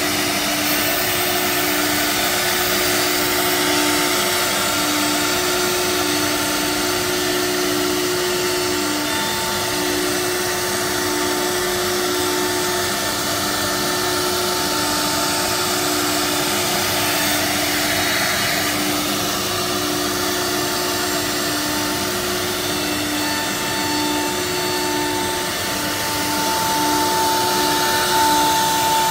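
Holztek R1325 3BF CNC nesting router cutting board, its spindle and dust extraction running: a steady machine noise with a constant hum and a high whine that grows louder near the end.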